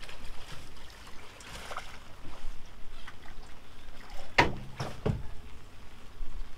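Two dull knocks on the boat about three-quarters of a second apart, a little past four seconds in, as a fishing rod is pulled from its holder and swept back to set the hook, over a steady low noise of wind and water.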